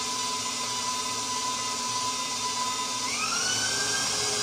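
Electric stand mixer running, beating cream cheese and sour cream in its steel bowl: a steady motor whine that rises to a higher pitch about three seconds in as the speed is turned up.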